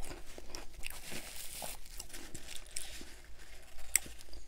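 Close-miked chewing and crunching of a ripple potato chip with French onion dip: a steady run of small crackles, with a sharper click about four seconds in.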